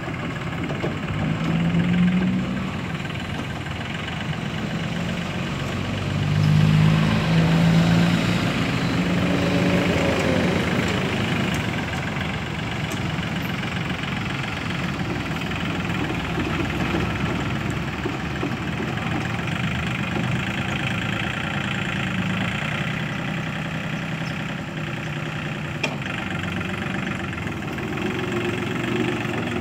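Yanmar compact tractor's diesel engine running under load as it drives a rear-mounted rotary tiller through the soil. The engine note swells twice: briefly about two seconds in, and again for a couple of seconds a little later.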